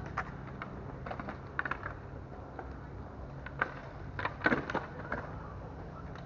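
Irregular small clicks and rattles from a fishing rod and its holder jostling on a moving ride, loudest in a quick cluster about four and a half seconds in, over a steady low rolling rumble.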